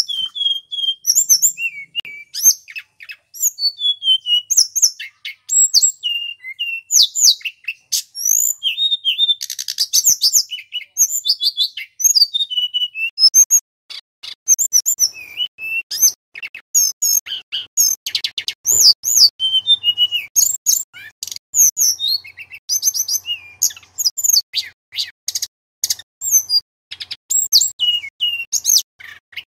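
Male tledekan gunung, a caged blue flycatcher, singing continuously: a rich, varied run of clear whistles, trills and quick chirps, phrase after phrase with only short gaps.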